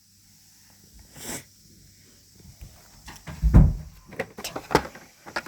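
Handling noise: scattered clicks and knocks with a heavier low thump about three and a half seconds in.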